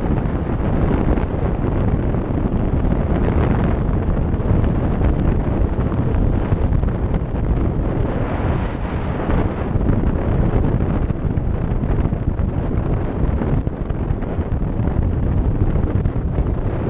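Wind buffeting the microphone of a camera mounted on a motorcycle riding at road speed, a steady rumbling rush with the bike's engine and tyre noise mixed in underneath.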